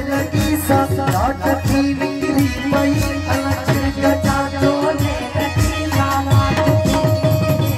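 Live Sindhi folk music: a man singing over a harmonium's steady held tones, with a hand drum playing a running beat.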